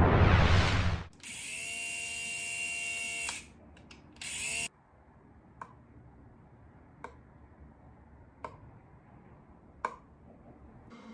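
A loud whoosh, then a steady buzz like a small electric drill for about two seconds, a short burst of the same buzz, then faint single clicks about every second and a half.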